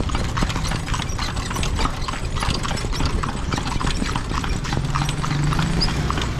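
Horse's hooves clip-clopping on the street as it pulls a kalesa, a horse-drawn carriage, with a steady low rumble from the carriage rolling along.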